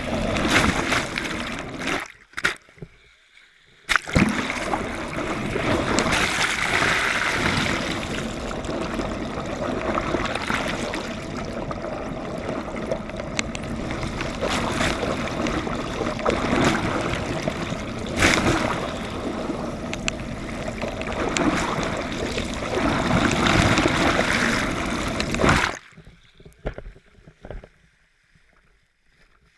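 Water rushing and gurgling past a GoPro held underwater on a pole alongside a moving yacht, a dense muffled wash. It drops out briefly about two seconds in, then cuts off suddenly near the end as the camera is lifted out of the water, leaving only faint wind and sea.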